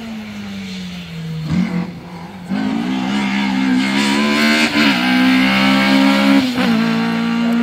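Hill-climb race car's engine running hard at high revs, getting much louder about two and a half seconds in as the car comes closer, its note broken briefly a few times.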